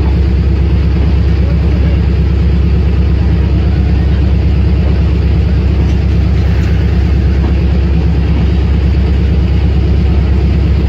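Passenger train rolling slowly past, with a steady, loud low diesel engine drone throughout.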